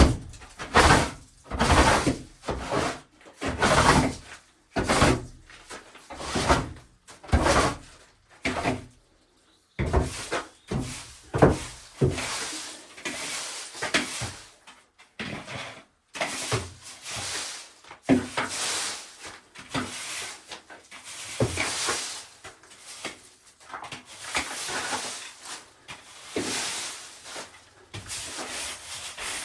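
Woodworking noise: a run of irregular rubbing and scraping strokes on timber, about one a second, mixed with knocks.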